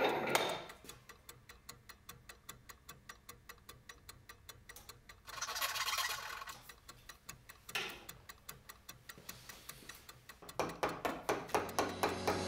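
A Japanese pull saw cutting a small hardwood block: one long stroke about six seconds in and a shorter one near eight seconds, over the steady ticking beat of background music, about four ticks a second. A short scrape right at the start, and the music swells with more instruments near the end.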